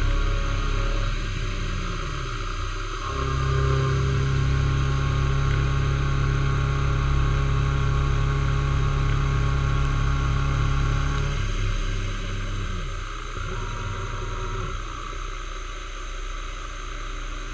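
Milling machine running, its end mill cutting a metal block, with a steady motor tone. The motor's pitch falls and rises about two seconds in and again about two-thirds of the way through, and the running is louder in between.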